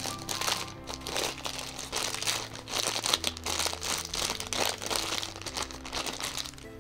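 Small clear plastic bag crinkling irregularly as it is rubbed and handled in the hands while being coated with sunscreen, over soft background music.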